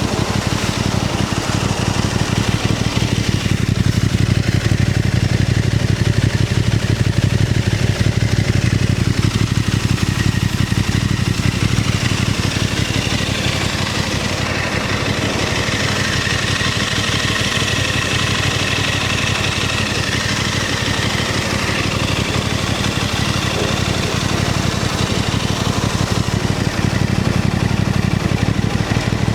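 Aprilia RS660 Extrema's 659 cc parallel-twin engine idling steadily at an even pitch.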